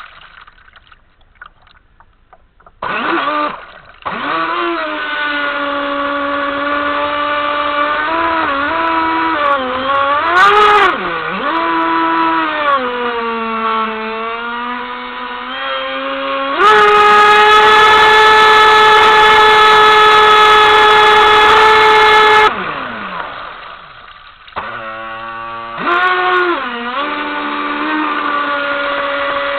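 Whine of a fast electric RC boat's Leopard 4074 2150kv brushless motor, picked up onboard, its pitch rising and falling with the throttle. It is silent for the first few seconds, then runs at a steady high pitch for several seconds past the middle at full speed, and cuts out briefly again near the end. The cut-outs fit the radio glitches that kept stopping the boat.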